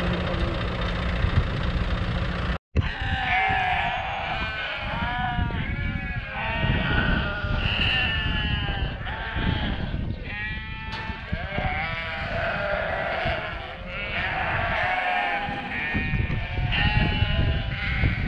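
A telehandler's engine idles for the first couple of seconds. Then a large flock of sheep bleats, many calls overlapping, over a steady low rumble.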